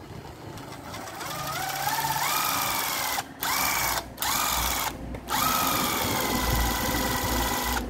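Hitachi 12V cordless driver's motor running free: its whine climbs in steps as the variable-speed trigger is squeezed further, cuts off a little after three seconds, then comes back in two short spurts and one longer steady run.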